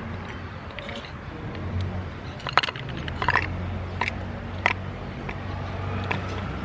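Food and its packaging handled while being put out for street cats, giving several sharp crackles about two to five seconds in, over a steady low hum like a running engine.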